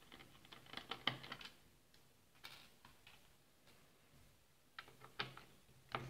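Light, scattered clicks and ticks of a small screwdriver working screws out of a laptop's plastic base panel: a cluster about a second in and a few more near the end.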